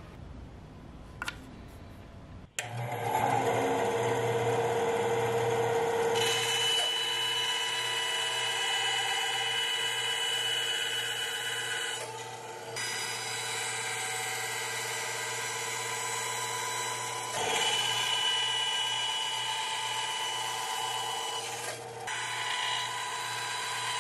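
Benchtop band saw running with a steady whine and low hum while its blade cuts small pieces of thin wood. It comes in suddenly about two and a half seconds in, after a short quiet stretch with one light click.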